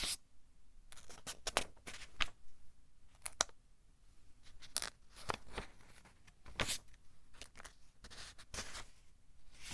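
Pages of a thin-paper book being turned one after another, each flip a short crisp paper rustle, about one a second with a few quick doubles.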